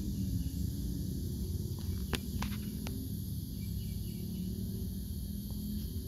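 Outdoor woodland ambience: a steady high-pitched insect chorus over a continuous low rumble, with a few sharp clicks about two to three seconds in.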